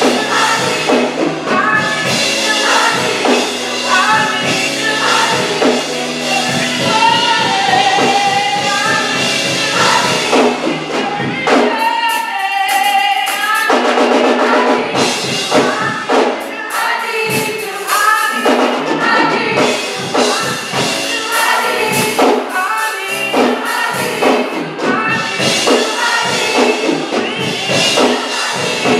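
Live gospel worship song: a woman leads into a microphone while a choir sings along, over instrumental backing with clapping. The low bass layer drops away about eleven seconds in.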